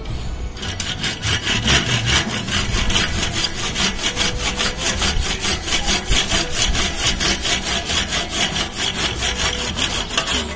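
Old hand saw cutting through a hand pump valve part clamped in a vise, with quick, even back-and-forth strokes of about four a second. It starts about half a second in.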